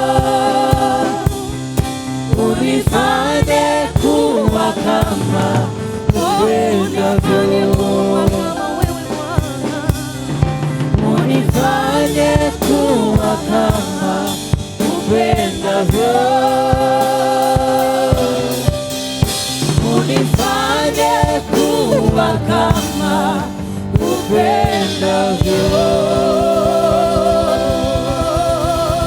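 Gospel worship song: voices singing long held, wavering notes over a band with drum kit and bass.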